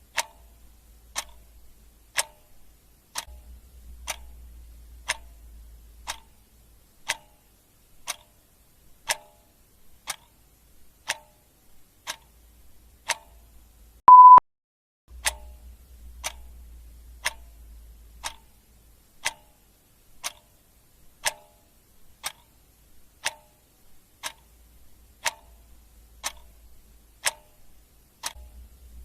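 Clock ticking steadily about once a second. About halfway through, a short loud beep cuts in once.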